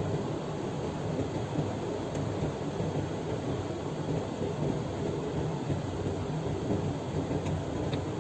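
Steady low rumble of a vehicle driving along a road, engine and tyre noise mixed together with no changes in pace.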